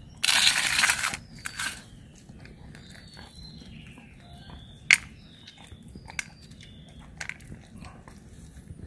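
German Shepherd chewing a piece of raw chicken: a loud noisy burst just after the start, then sharp isolated clicks of teeth on meat and bone, the loudest about five seconds in.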